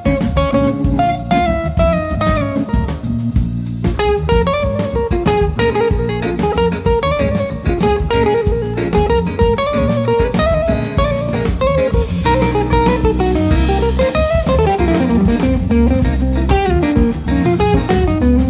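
Live band playing: a hollow-body electric guitar plays moving single-note lines over keyboard and drum kit.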